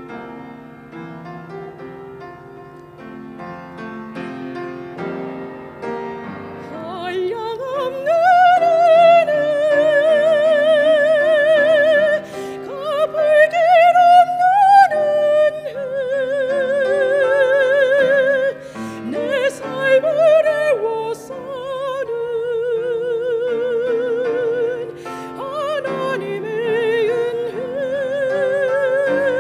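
Soft piano accompaniment on its own, then about seven seconds in a woman's solo voice comes in singing a Korean hymn over it. She holds long, loud notes with a wide vibrato, with short breaks between phrases.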